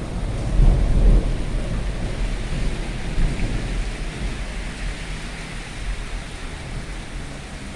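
Steady rain falling as an even hiss, with a deep rumble in the first second or so.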